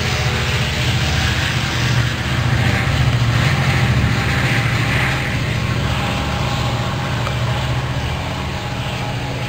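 Diesel locomotive engine of a Sounder commuter train running with a steady low drone, over a steady hiss, easing slightly in the second half.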